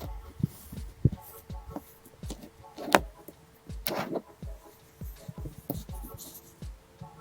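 Magnetic slime being squeezed and worked by hand: frequent soft squelching pops, about two a second, with two sharper crackling clicks about three and four seconds in.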